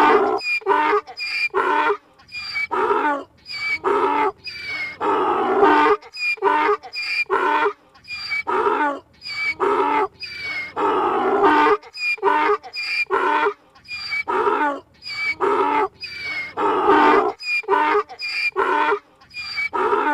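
Donkey braying: several brays one after another, each a rhythmic run of alternating hee-haw calls about twice a second, with short breaks between bouts.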